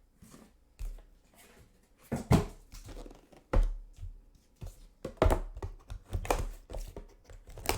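Trading-card pack packaging being torn open and handled: irregular crinkling and tearing of the wrapper with scattered knocks, about one stroke a second.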